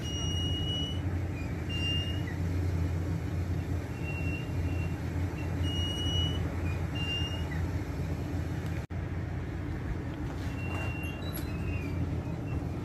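Steady low mechanical hum, like an idling vehicle or running machinery, with short high chirps at irregular intervals over it.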